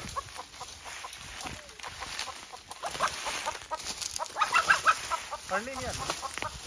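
A chicken squawking and clucking in alarm while being chased, with a burst of rapid squawks about four and a half seconds in. Footsteps crunch and rustle through dry bamboo leaves throughout.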